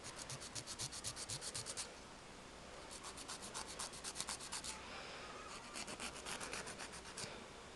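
Hand nail file scraping over a gel nail in three runs of quick back-and-forth strokes, about eight a second, with short pauses between runs: lifted gel being filed down and blended into the nail.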